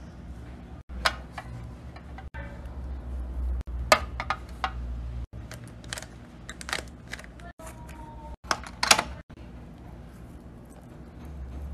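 Fidget toys being handled: sharp clicks and snaps at irregular intervals over a low steady hum, broken by several brief dropouts.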